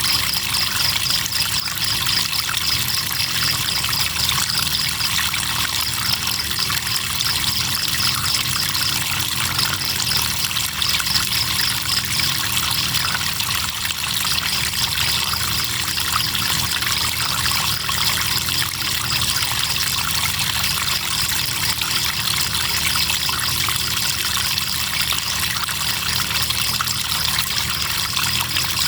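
River water trickling and flowing steadily, with crickets chirping in a high, fast-pulsing trill that pauses briefly a few times.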